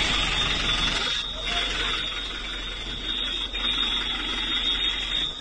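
A steady, high-pitched electronic alarm tone sounds without a break over a bed of rough background noise.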